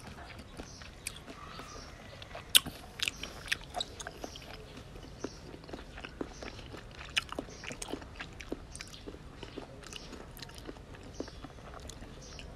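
Mouth sounds of a person chewing raw shrimp in chili sauce: irregular short clicks throughout, the loudest about two and a half seconds in.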